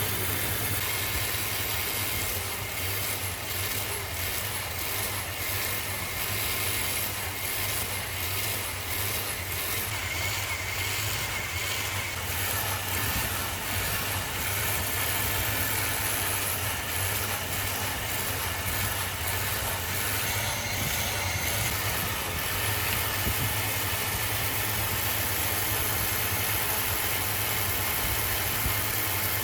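Workshop machinery running steadily: a constant low motor hum under a high hiss, with no breaks.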